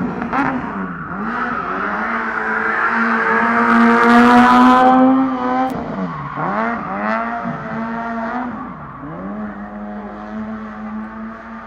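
Proton Satria Neo S2000 rally car's two-litre four-cylinder engine held at high revs while drifting on tarmac. The revs drop and climb back about four times, and the tyres squeal loudest about four seconds in.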